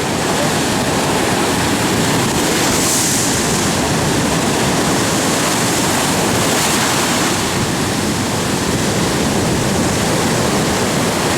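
Heavy storm surf breaking on a sandy beach, a loud continuous wash, with the hiss of breaking water swelling about three seconds in and again near seven seconds. Wind on the microphone adds to the rush.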